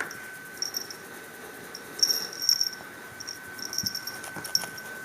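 A cat's small collar bell jingling in short bursts as the cat moves, over a steady faint high whine.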